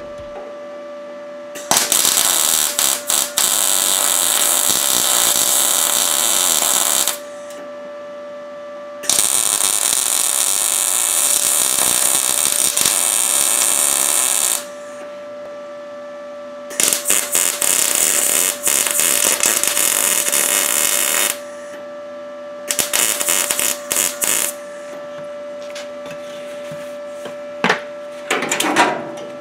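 Arc Captain MIG 200 welder laying beads on sheet steel with 0.030 wire: four runs of arc noise, about five, five and a half, four and a half and two seconds long, with a steady hum between them. A couple of sharp knocks near the end.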